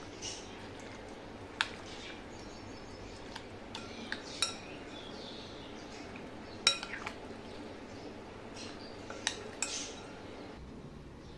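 Metal spoon clinking against a glass mixing bowl while stirring a creamy curd salad: sharp, separate clinks every couple of seconds, a few coming in quick pairs.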